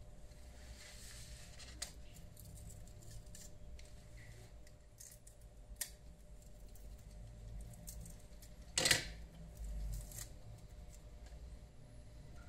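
Small clicks and scrapes of hand tools working on a smartphone during a touchscreen replacement, with one louder, brief rasp about nine seconds in, over a faint low hum.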